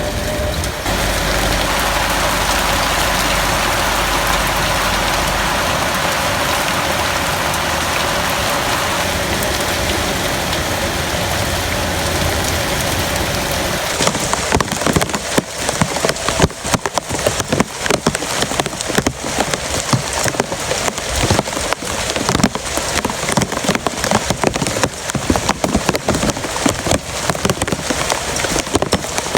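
Heavy rain falling in a steady, dense rush; about halfway through it turns into an uneven patter of individual drops striking a surface.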